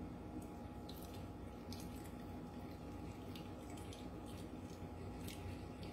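Milk-and-egg mixture poured slowly through a metal mesh strainer into a ceramic teacup. It is faint: a few soft, scattered ticks and drips over a steady low room hum.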